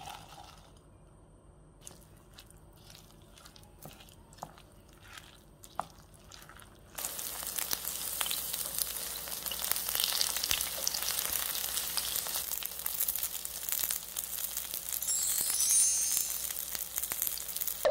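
Chopped mushrooms and vegetables being mixed into pancake batter in a bowl, with a few light clicks. About seven seconds in, a loud steady sizzle starts as spoonfuls of shiitake mushroom batter fry in hot oil in a pan.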